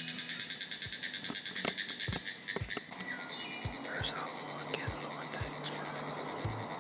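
Woodland insects droning and chirping steadily, with a few bird chirps after the midpoint and soft low thumps about twice a second.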